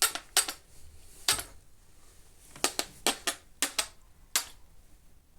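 Elbow joint of a Vijim microphone boom arm creaking as the arm is bent, about nine short, sharp creaks at uneven intervals. The creaking comes with the joint's tension knob tightened, and silicone spray and grease have not cured it.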